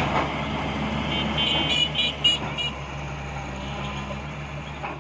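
Caterpillar 320 excavator's diesel engine running steadily. Between about one and three seconds in, a string of short, high-pitched horn toots sounds over it.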